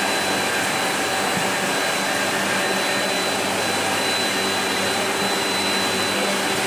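Inline filling and lidding machine running: a steady whirring noise with a thin, steady high whine and a low hum.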